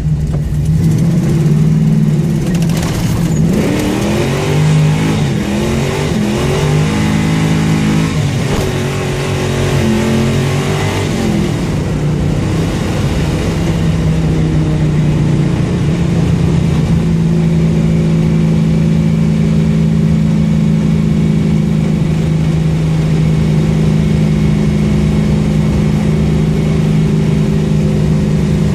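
Car engine with an exhaust leak, revving up and down several times, then settling to a steady idle for the second half.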